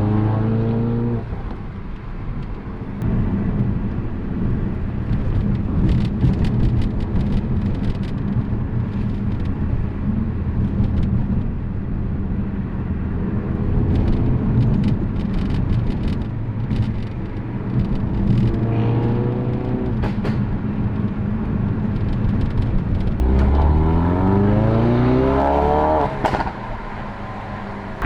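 Ford Focus RS Mk3's tuned turbocharged 2.3-litre four-cylinder engine and exhaust being driven hard. The engine note rises and falls with the throttle over road rumble and scattered sharp cracks. Its revs climb in quick rising sweeps a few times, most strongly near the end.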